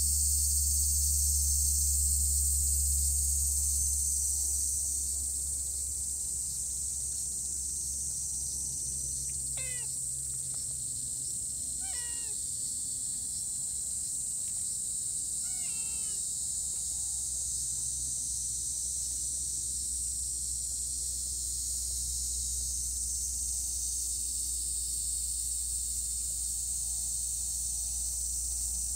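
A cat meowing three short times, a few seconds apart, over a steady high hiss.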